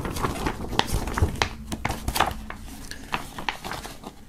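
A large paper poster being folded back up by hand: paper rustling with a series of short, sharp crackles.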